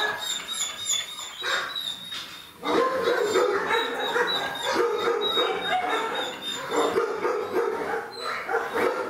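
Dogs barking and yelping, dense and nearly continuous, with a short lull before it picks up again about two and a half seconds in.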